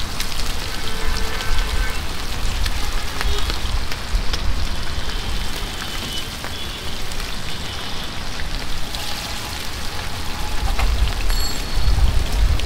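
Marinated chicken chap pieces deep-frying in a large karai of oil: a steady sizzle with many small crackles, over a low rumble.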